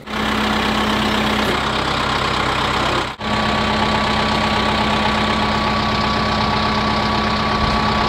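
Kubota M60 tractor's diesel engine idling steadily. The sound cuts out for a moment about three seconds in.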